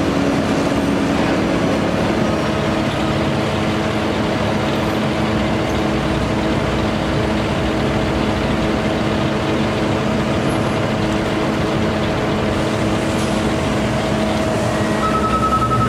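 Utility bucket truck's engine running steadily, driving the hydraulic pump for the Altec aerial boom, with a constant mechanical hum. A higher steady whine comes in near the end.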